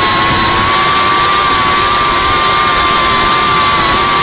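FPV racing quadcopter's brushless motors and propellers whining at a steady pitch with small wavers as the drone cruises low and fast, over a rush of propeller and wind noise.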